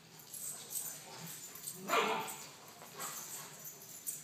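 A German Shepherd making a few short calls in a row, the loudest about two seconds in.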